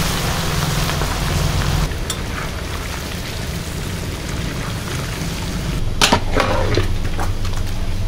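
Fish heads deep-frying in a wok of hot mustard oil: a steady hissing sizzle like rain, with a few sharp pops about six seconds in.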